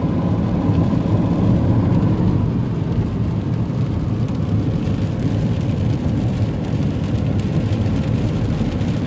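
Steady road and engine noise inside a moving car's cabin, its tyres running over a wet, hail-strewn road.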